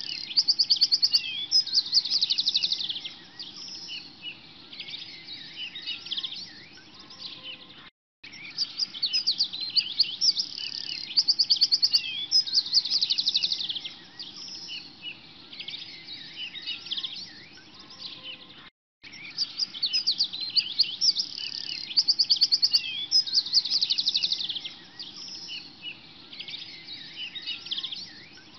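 A looped recording of many songbirds chirping and trilling at high pitch, over a faint low hum. The loop runs about eleven seconds and restarts after a short dropout, twice.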